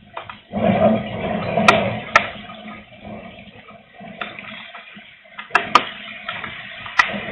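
Strong wind gusting across the microphone, swelling about half a second in and easing off after a few seconds. A few sharp ticks of raindrops land through it.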